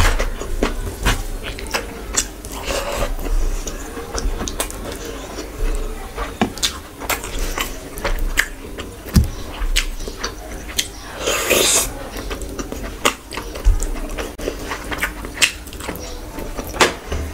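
Close-miked eating sounds: wet chewing and lip smacks with many short clicks, and fingers squishing rice and curry together on a plate. A short, louder hissing rush comes about two-thirds of the way in.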